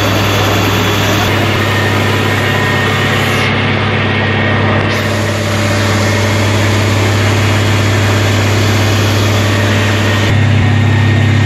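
Fire truck's diesel engine running steadily at close range, a low even hum that gets a little louder about ten seconds in.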